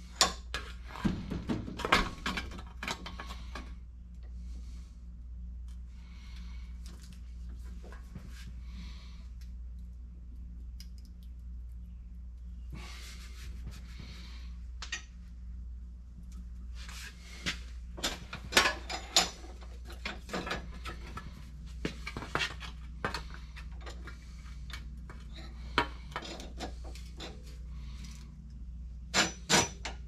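Sheet metal being clamped in a bench vise and bent by hand, with scattered clanks, knocks and scraping of the metal and the vise handle in bursts. A steady low hum runs underneath.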